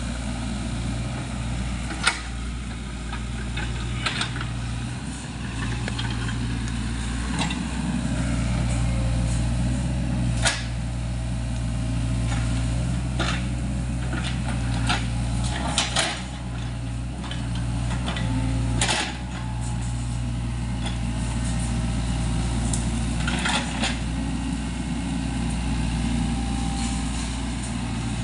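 SANY mini excavator's diesel engine running steadily while it works, growing somewhat louder at times, with several sharp clanks every few seconds.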